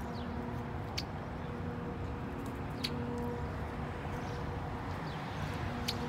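Red-winged blackbird giving short, sharp check calls: three of them, roughly two seconds apart, with a couple of fainter thin notes between, over a steady low background rumble.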